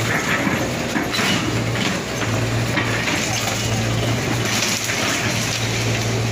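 Hyundai hydraulic excavator demolishing a building: a steady low diesel engine hum under the crunching and cracking of debris being broken up.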